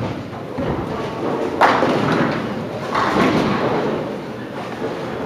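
Bowling alley noise: a sudden heavy impact about a second and a half in that rings out, and a smaller one about three seconds in, over a steady background of alley sound.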